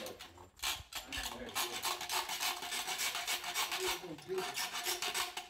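Rapid, continuous rasping scrape of metal being worked at a lead-acid battery's terminal post.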